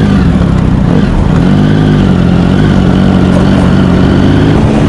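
Motorcycle engine running at low revs, rising briefly in pitch and settling back about a second and a half in.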